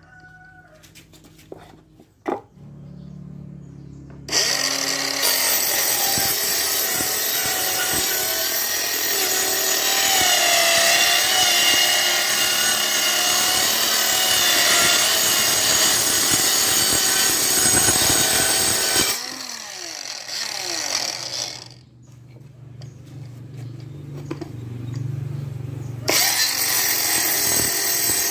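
Homemade 20-volt cordless mini circular saw, an RS 895 DC motor driving a salvaged circular saw gearbox, cutting wood. The loud cut starts about four seconds in and runs about fifteen seconds, the saw winds down with a falling pitch and keeps turning more quietly, then it cuts again near the end.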